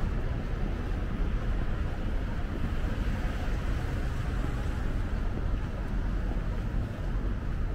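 Steady outdoor noise with a heavy low rumble and no distinct events, of the kind heard on a city street walk: traffic and wind blending together.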